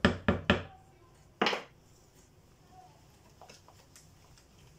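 Wooden spoon knocked against the rim of a mixing bowl of crêpe batter: three quick sharp knocks, then a fourth about a second later. After that, faint light ticks of a whisk stirring the batter.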